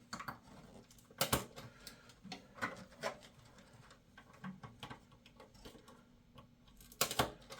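Scattered clicks and knocks of plastic connectors and cables being handled and pushed onto a motherboard inside a PC case: the AT power supply leads being plugged in black wires to black. There is a sharper knock about a second in and a quick cluster of knocks near the end.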